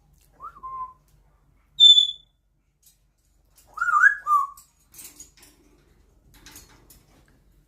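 African grey parrot whistling and mimicking: a short rising-then-falling whistle, then a short, loud, high beep like the dishwasher beep it imitates, then a warbling whistle followed by faint clicks and rasps.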